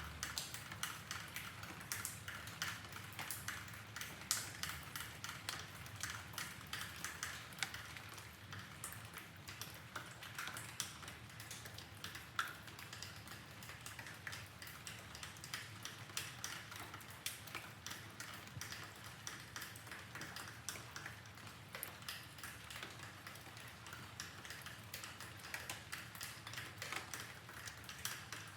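Rain dripping: a dense, irregular patter of drops tapping and pinging, over a soft steady rain hiss.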